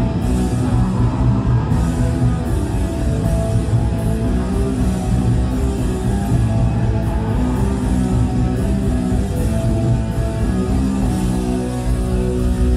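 Live black-thrash metal band playing loudly: distorted electric guitars holding long chords over a constantly pounding drum kit.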